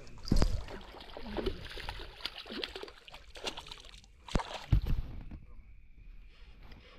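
Water splashing and sloshing with irregular knocks, and two heavy thumps, one right at the start and one about two-thirds of the way through, from a tararira (trahira) thrashing as it is landed at the creek's edge.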